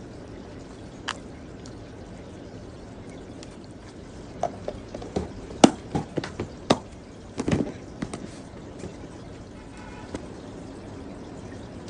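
Light clicks and knocks of kitchen items being handled, clustered in the middle, over a steady hiss.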